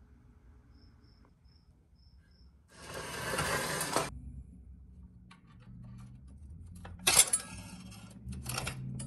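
Light metal clinking and scraping of rusted pressed-steel toy truck parts being handled, with a rush of scraping noise about three seconds in. About seven seconds in, snips bite into a twisted steel wire on the frame with a sharp metallic snap, followed by more clicks and scraping.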